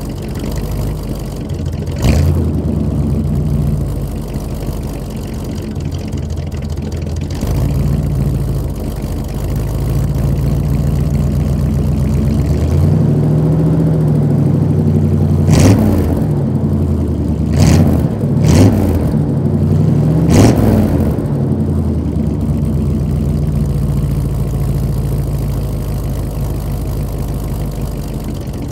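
1986 Chevy C-10 pickup engine idling steadily through its exhaust after a cold start. Starting about halfway through it is revved several times, the pitch rising and falling, with a few short sharp pops at the revs, before it settles back to idle. A single sharp click sounds about two seconds in.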